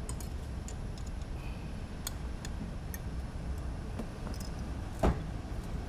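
Small clicks and taps of screws, a spacer and hand tools against a carbon-fibre drone frame being assembled by hand, with one louder knock about five seconds in, over a steady low rumble.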